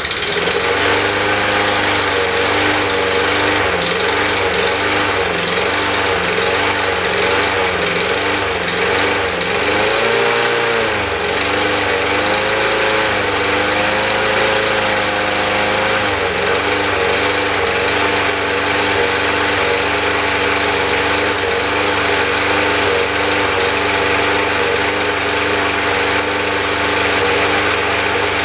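Walk-behind lawnmower's small engine catching on the first pull and running. For about the first fifteen seconds it surges, its speed rising and falling over and over, the way it does before it has warmed up. After that it settles into a steady run.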